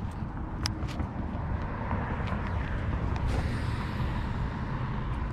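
Steady low outdoor rumble with a faint hiss, and a couple of sharp clicks just under a second in.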